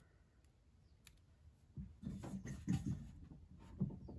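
Irregular scuffing and rubbing of a hand and arm against the inner metal skin of a 2020 Toyota Corolla rear door while a rolled ball of butyl tape is pressed into place behind the side impact bar. It begins about two seconds in, after a quiet start.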